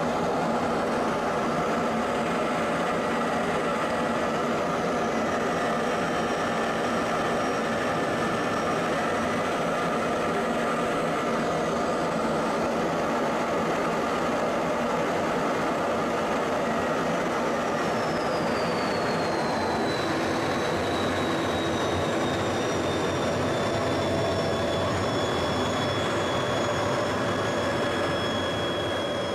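Steady jet-aircraft engine roar with rushing air, overlaid by thin high turbine whines; one whine slides down in pitch a little past halfway.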